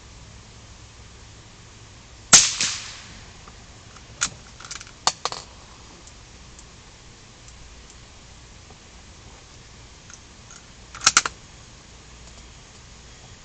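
A single rifle shot about two seconds in, ringing out briefly after the crack. Lighter sharp clicks follow around five seconds, and a quick cluster of three clicks comes near eleven seconds: handling of the gun.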